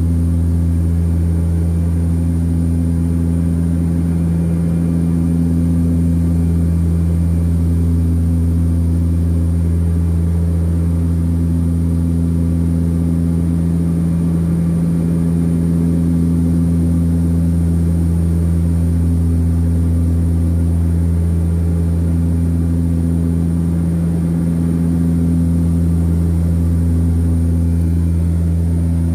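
Cabin noise of a de Havilland Canada DHC-6 Twin Otter's twin turboprops at climb power just after takeoff: a loud, steady low drone from the propellers and engines, with a higher tone that swells and fades every few seconds.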